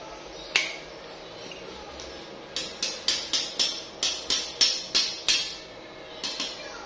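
Sharp metal-on-metal taps: a single tap, then a quick run of about ten taps at about three a second, each ringing briefly, and two more near the end.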